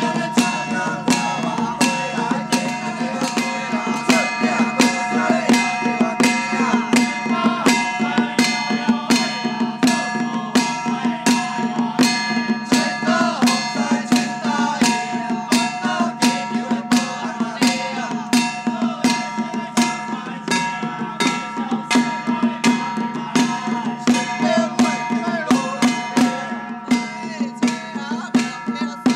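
Hand-held drums beaten with sticks in a steady beat, about three strokes every two seconds, over a steady held ringing tone.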